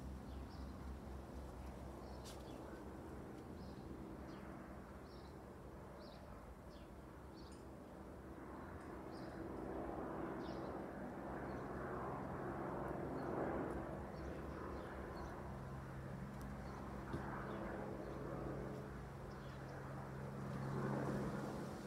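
Garden ambience: short high bird chirps, mostly in the first half, over a low steady hum and a soft rushing sound that swells from about eight seconds in.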